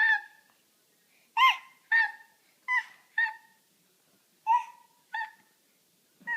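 An animal's short, high-pitched squeaky calls, mostly in pairs about every second and a half, each with a sharp start and a brief falling or level tail.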